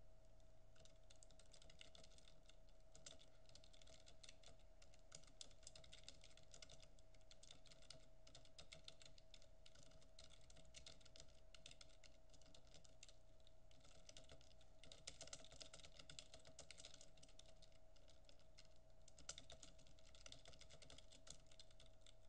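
Faint typing on a computer keyboard: quick runs of key clicks broken by short pauses, over a faint steady tone.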